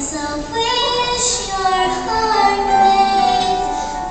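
A children's choir singing, with long held notes.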